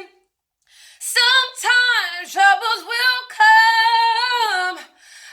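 A woman singing solo in a high voice with long, bending held notes and no audible accompaniment. The voice drops out briefly at the start and comes back in about a second in.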